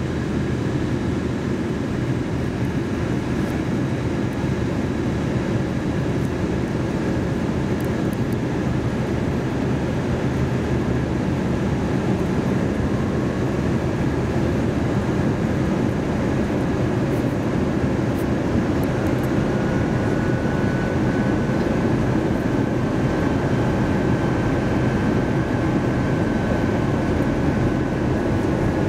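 Steady cabin noise inside an Airbus A321-200 airliner in flight: the jet engines and rushing airflow make an even low roar, with a faint high steady whine over it.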